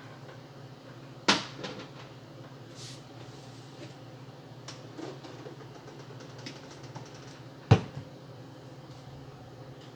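Two sharp knocks of kitchen things being handled and set down, one about a second in and a louder one near the end, with a few faint clicks between, over a steady low hum.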